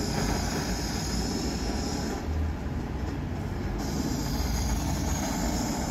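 Gas-canister blowtorch flame hissing steadily while it heats the end of a polyethylene pipe to soften it. Over a low rumble, the higher hiss drops out for about a second and a half midway, then returns.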